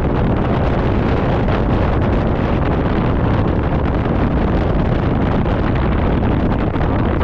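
Steady wind buffeting the GoPro Hero 12's microphone on a moving motor scooter, an even rushing noise with no changes.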